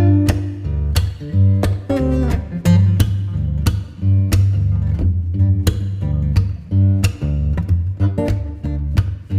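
Background music: acoustic guitar strumming chords in a steady rhythm over a bass line.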